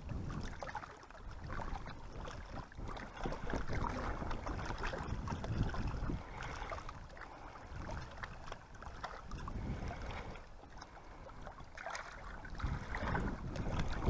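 Gusting wind buffeting the microphone over small waves lapping at the lake shore, rising and falling irregularly.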